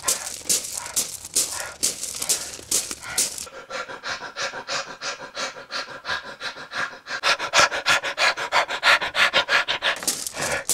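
A person panting heavily, out of breath: breathy gasps at first, then about three seconds in quickening to several short, voiced pants a second, loudest in the second half.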